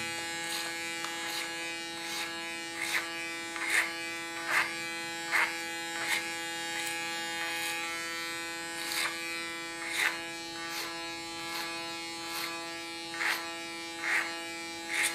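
Electric hair clipper running with a steady hum as it is worked clipper-over-comb through short hair, with a short sharper sound about once a second.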